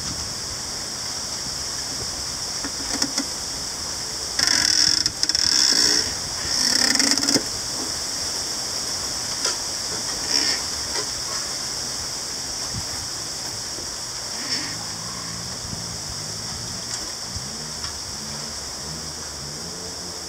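Bamboo culms creaking and groaning as they press and flex against each other in a crowded grove, over a steady high hiss. Three loud creaks come close together between about four and seven seconds in, and a low wavering groan starts about fifteen seconds in.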